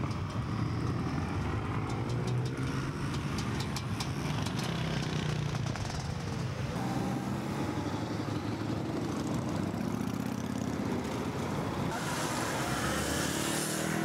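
A long stream of motorcycles riding past one after another, their engines running continuously, with the hiss growing near the end as bikes pass close by.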